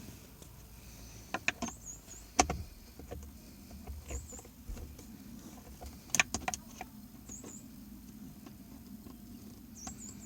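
Scattered clicks and knocks of hand work on a Ford Ranger's plastic steering column trim, with a few short high squeaks between them.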